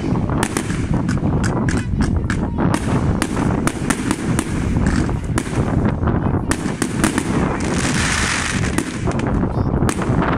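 Fireworks going off: a quick run of sharp bangs and crackles from aerial shells bursting, with a stretch of dense hissing crackle about eight seconds in.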